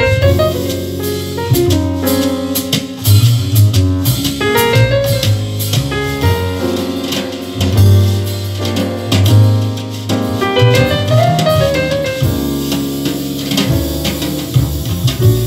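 Instrumental jazz-style music with drums, bass and piano, played back through a pair of vintage 1970 Diatone DS-251 three-way loudspeakers with Alnico magnets.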